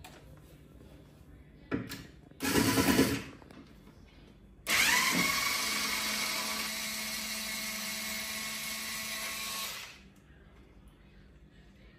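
Cordless power screwdriver running steadily for about five seconds, starting with a rising whine, while a kitchen cabinet handle is being changed. A brief loud clatter comes a couple of seconds before it.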